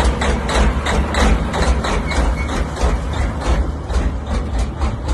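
Semi truck's diesel engine idling loudly with a choppy, even pulse of about four to five beats a second over a deep rumble.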